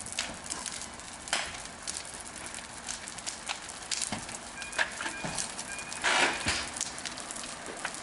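A burning car crackling, with irregular sharp pops and snaps; the loudest burst comes about six seconds in.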